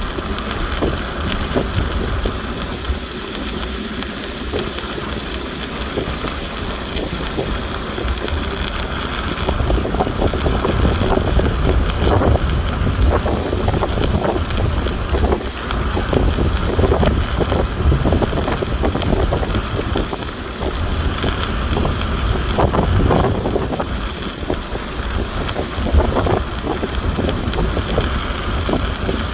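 Stick (shielded metal arc) welding arc crackling and sizzling steadily as a bead is run, over a continuous low rumble.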